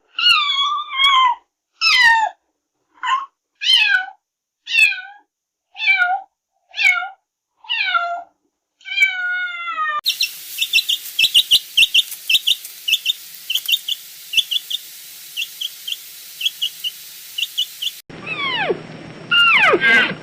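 A cat meowing repeatedly, about ten separate meows, each falling in pitch. About halfway through it switches to a different recording of rapid, high chirps over a steady hiss, and near the end to high cheeps that glide downward.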